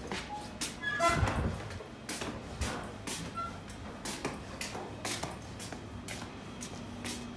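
Footsteps on paving stones, a step roughly every half second, with a louder knock and a brief squeak about a second in.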